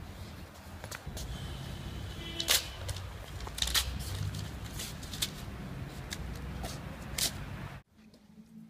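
Paper being handled, with a few sharp crinkles over a low steady rumble. The rumble drops away abruptly near the end.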